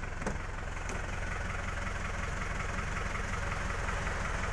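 Isuzu Panther's 2.5-litre four-cylinder diesel idling steadily with a light clatter. A door latch clicks open about a quarter second in, with a fainter click just after.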